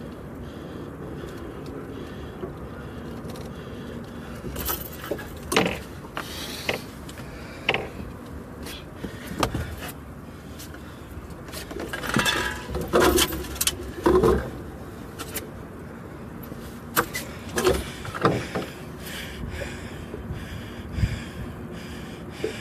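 Irregular knocks, rattles and scrapes of close-up handling, starting a few seconds in and coming in clusters, over a steady background hiss.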